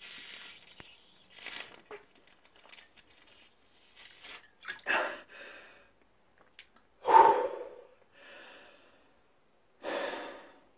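A man's sharp breaths and gasps after a swig of neat vodka, in about six separate bursts, the loudest about seven seconds in.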